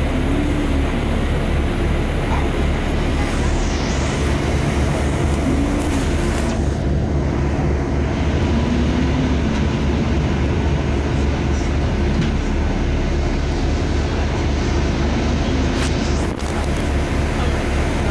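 Steady, loud street noise: a deep rumble like passing traffic, with indistinct voices in the background.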